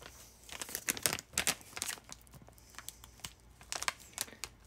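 Plastic bag crinkling and rustling in irregular crackles as it is handled and opened.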